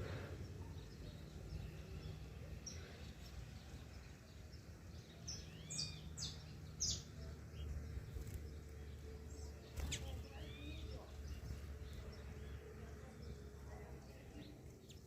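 Small birds giving short, sharp chirps: a cluster about five to seven seconds in and another near ten seconds, over a low steady background rumble.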